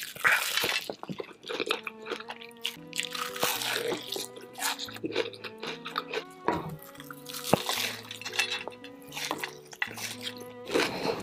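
Close-miked wet, squishy eating: Hot Cheetos–crusted chicken pulled through thick cheese sauce and chewed, in short bursts, over soft background music with a slow stepping bass line.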